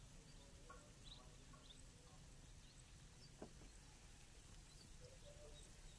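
Near silence: quiet rice-field ambience with a few faint, short bird chirps and a single faint click about three and a half seconds in.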